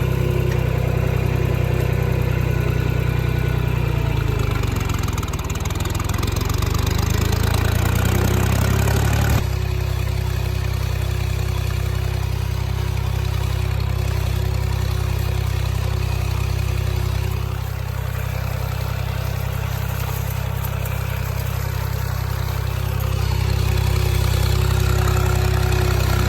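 Old John Deere tractor engine running steadily under work. Its pitch sways up and down for a few seconds, then the sound changes abruptly about nine seconds in and runs on evenly.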